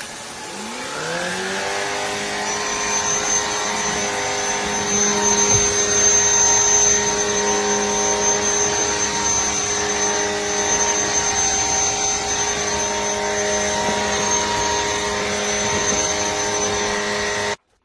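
Shark cordless stick vacuum switched on: its motor spins up with a rising whine in the first second or two, then runs steadily with a high whine and rushing air before cutting off abruptly near the end.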